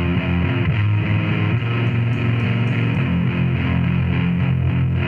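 Loud, dense noise-rock music with distorted guitars, steady throughout.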